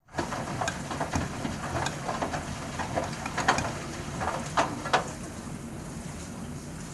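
Bosch front-loading washing machine in its wash cycle, the drum turning with water splashing and irregular knocks from the load and the pipe tumbling inside it. The splashing and knocks die down about five seconds in, leaving a steady hum.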